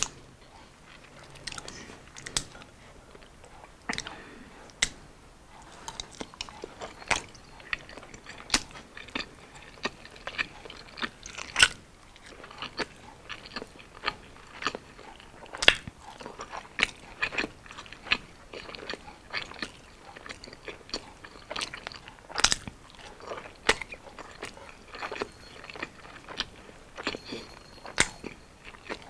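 Close-miked chewing of battered, deep-fried street food, with irregular crisp crunches and wet mouth sounds.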